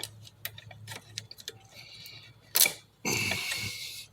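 Small clicks and taps of hands handling screws and switch hardware, with one sharp knock about two and a half seconds in, then a second of rustling near the end.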